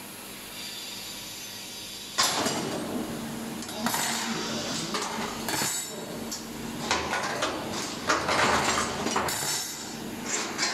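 Thin laser-cut sheet-metal parts, barbecue grill grates and panels, being pulled by hand out of the cut steel sheet, clanking and clinking against the sheet and the machine's slatted bed in irregular bursts from about two seconds in. Before that, a steady hiss.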